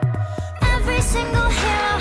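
Pop song music. After a short break, the beat and deep bass come back in about half a second in.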